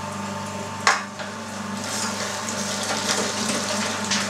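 Electric meat grinder running with a steady motor hum while chunks of raw beef and pork are pushed through its coarse plate. There is a sharp knock about a second in, and the sound grows rougher and a little louder from about two seconds in as the meat feeds through.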